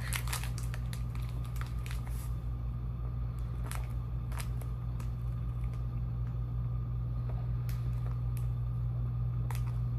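Someone chewing a sweet and salty peanut granola bar, with scattered crisp crunches. A steady low electrical hum runs underneath.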